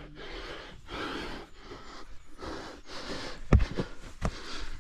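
A man breathing hard and fast, about one breath a second, out of breath from climbing up out of a mineshaft. Two dull knocks sound about three and a half and four seconds in.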